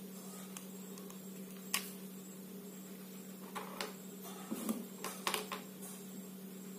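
Hard plastic parts of a take-apart toy truck clicking and knocking as they are handled and pulled apart: one sharp click about two seconds in, then a cluster of clicks and light rattles a little past the middle. A steady low hum runs underneath.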